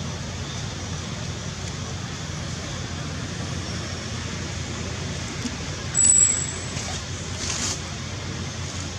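Steady low outdoor background rumble, with one short, sharp high-pitched chirp about six seconds in.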